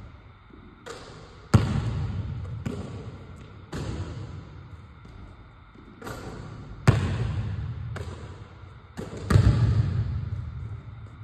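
A basketball thudding on a gym floor and off the rim during a shooting drill, about seven sharp impacts one to two seconds apart, each echoing in the large hall.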